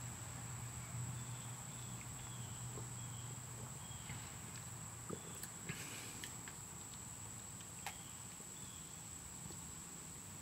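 A man sipping a drink from a plastic cup, heard faintly as a few soft clicks and a brief slurp about halfway through. Faint short high chirps repeat in the background over a low hum that stops about four seconds in.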